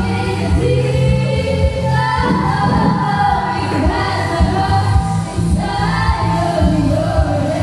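Female Filipino pop vocal group singing together into handheld microphones over instrumental backing with bass and a steady beat.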